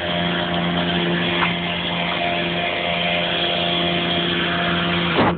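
A motor running at a steady pitch after a short rise, then cutting off near the end.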